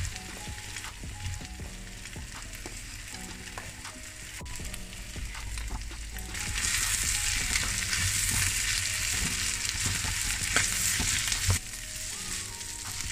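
Egg-coated rice sizzling in a hot pan of butter-fried bacon, onion and garlic, with the scrape and clatter of a spoon and spatula stirring it. The sizzle grows louder about halfway through, then drops back near the end.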